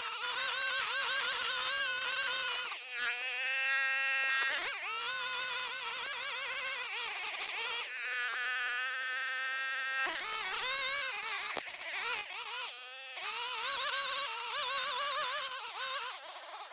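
Gas string trimmer engine running at high revs as it cuts tall grass, its pitch wavering up and down with the cutting load. Twice, for a second or two, the note holds steadier.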